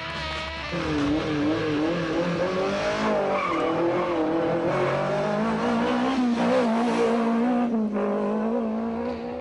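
Fiat Cinquecento rally car engine revving hard on a stage. Its pitch climbs and falls back several times and drops about eight seconds in.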